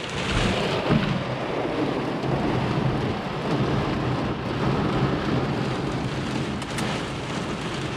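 Heavy rain drumming on a car's roof and windows, heard from inside the cabin as a steady, dense patter with a low rumble.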